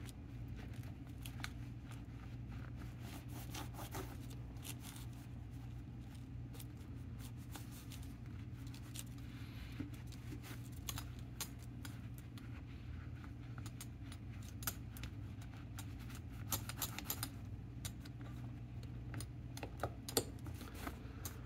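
Scattered small clicks, taps and scrapes from a metal pinball drop-target assembly being handled and wiped clean with a cloth, over a steady low hum.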